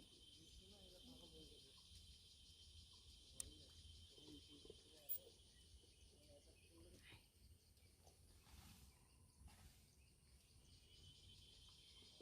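Faint forest ambience: a steady high-pitched insect chorus that fades in the middle and comes back near the end, with soft low murmurs and two small clicks.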